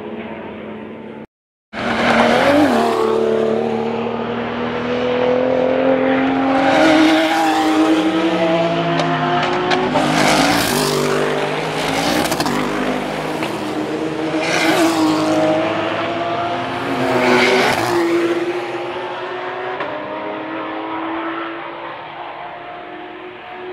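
Several race cars going past one after another at racing speed, their engines revving hard, pitch climbing and dropping as each car passes. There is a short cut to silence about a second in.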